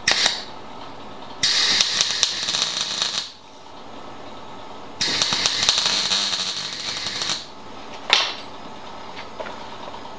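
MIG welder crackling as it welds a thin steel patch panel onto a car's rear wheel arch. There is a short tack at the start, then two crackling runs of about two seconds each, then another short tack near the end.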